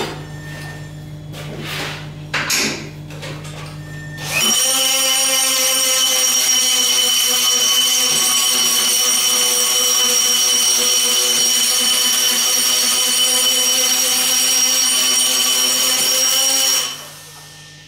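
A die grinder running at speed with a steady high whine, cleaning mill scale from the inside of a pipe end; it starts about four seconds in and winds down near the end. Before it starts, a few clinks and knocks over a low steady hum.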